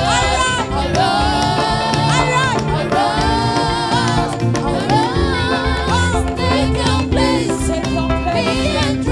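Gospel worship music: voices singing long held, wavering notes over a steady band accompaniment.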